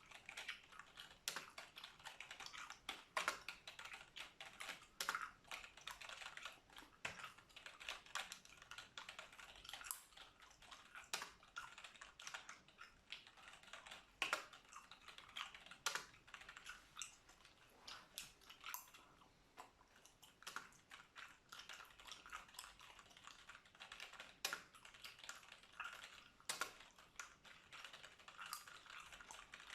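Computer keyboard being typed on close to the microphone: quick, irregular key clicks without pause, with gum being chewed alongside.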